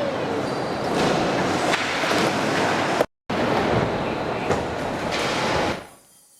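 Skateboard wheels rolling over concrete with a steady rumble and scattered sharp clacks. The sound breaks off briefly about three seconds in and fades out near the end.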